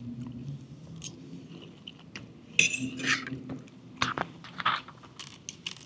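Cutlery clinking and scraping against a dish while eating a bowl of fruit, with several sharp clinks in the second half.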